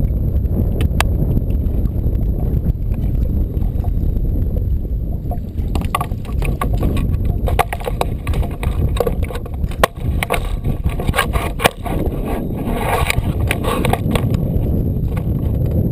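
Steady low wind noise buffeting the microphone, with a run of sharp clicks and knocks starting about five seconds in as things are handled in the canoe.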